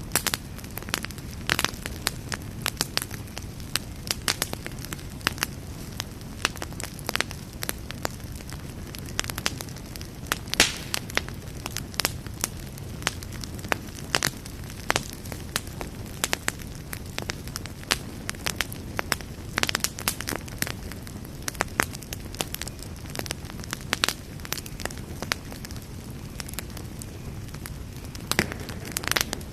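Campfire burning, with a steady low rumble of flames and frequent sharp, irregular crackles and pops of burning wood.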